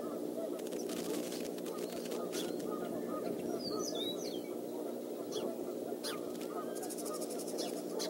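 Small songbirds chirping in the nest tree, with a short high twittering song phrase about halfway through. Underneath runs a steady low hum, and there are a few faint rustling clicks.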